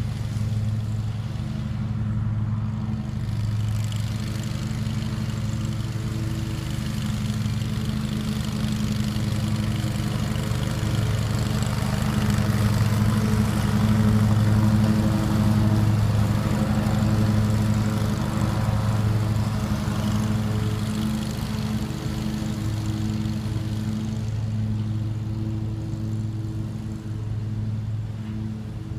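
Riding lawn mower engine running steadily while mowing. It grows louder as the mower passes closest about halfway through, then eases off as it moves away.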